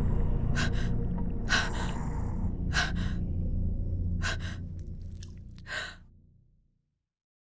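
Heavy breathing: five short, hard breaths about one to one and a half seconds apart, over a low drone that fades away near the end.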